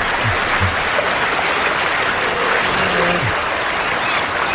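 Rushing river water, a steady loud rush, with a few short low sounds under it.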